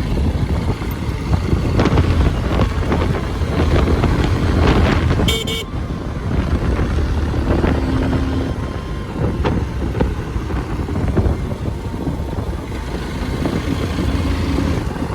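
Motorcycle engine running on the move, with a short horn toot about five seconds in.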